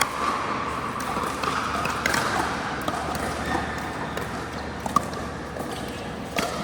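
Pickleball paddles striking the hollow plastic ball, several sharp pops spread over the few seconds of a rally, the sharpest about five seconds in, echoing in a large indoor hall.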